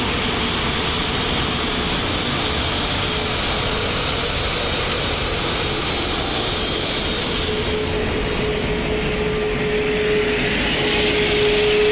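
Airbus A380 taxiing: steady jet engine noise, with a thin steady whine that grows stronger in the second half.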